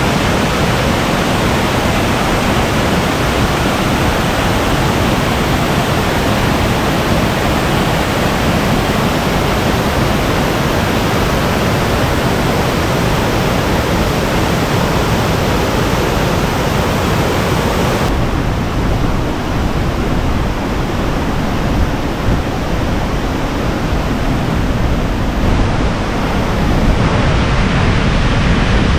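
Heavy, steady rush of water pouring over a low, high-volume waterfall. The hissing upper part of the sound drops off abruptly about two-thirds of the way through.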